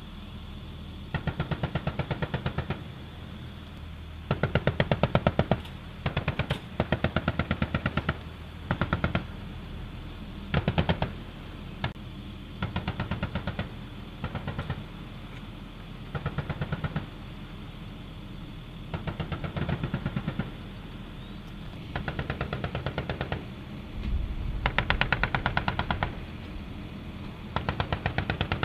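Vehicle-mounted M2 .50-caliber heavy machine guns firing about a dozen short bursts of rapid shots, each a second or two long, with gaps between bursts, over a steady low rumble.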